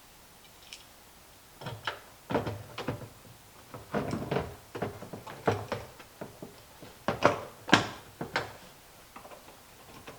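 A string of irregular knocks and clunks, some with a short ring, as tools and parts are handled and set down on the compost tumbler's plastic lid; the sharpest come about seven seconds in.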